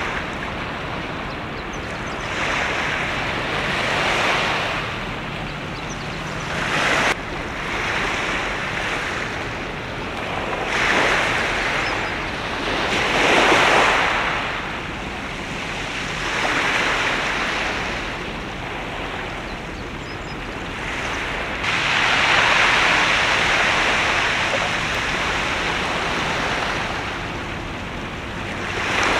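Sea water washing against the shore in repeated surges, each swell rising and falling over a second or two, with a longer surge about three-quarters of the way through, over a steady wind noise.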